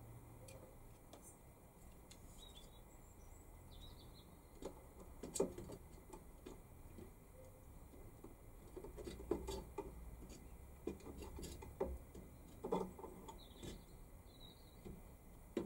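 Faint, scattered light clicks and knocks of handling, a few of them sharper, with occasional faint high chirps.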